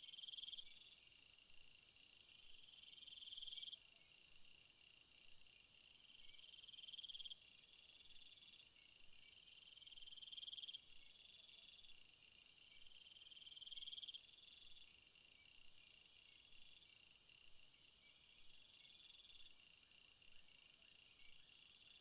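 Faint forest ambience of insects: a buzzing trill that swells and cuts off sharply every three to four seconds, over steady rapid higher-pitched chirping.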